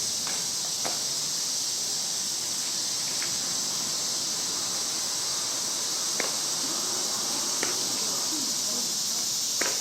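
Steady high-pitched chorus of insects, with several sharp knocks spread a second or more apart: softball bats hitting balls during batting practice.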